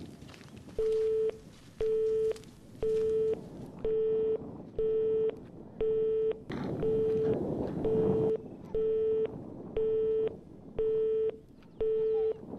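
Telephone busy tone heard through a mobile phone: a single low beep about half a second long, repeating once a second, meaning the line is engaged and the call is not going through. About halfway through, a stretch of rushing noise rises under the beeps for a couple of seconds.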